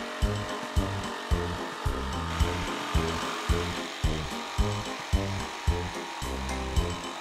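A jigsaw running and cutting through plywood. Background music with a steady beat plays over it.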